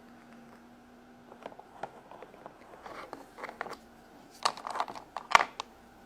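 Small plastic toy pieces handled on a plastic playset: scattered light clicks and taps, with a burst of louder clicks in the second half, the loudest about five and a half seconds in.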